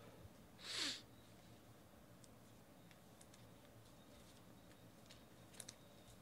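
Near silence, broken about a second in by one short sniff, and by a few faint clicks near the end from trading cards being handled.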